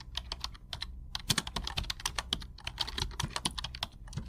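Keyboard typing: rapid, irregular clicks, several a second, over a low steady hum.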